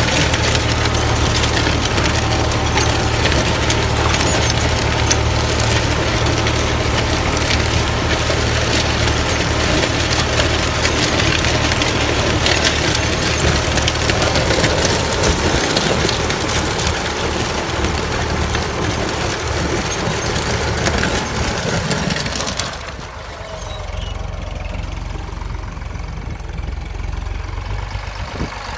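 Tractor-mounted disc plough's steel discs cutting through dry, stony soil: a dense, continuous crackle and crunch of breaking clods and stones over the steady low hum of the tractor engine. About 23 seconds in the crackle stops and mainly the engine is left.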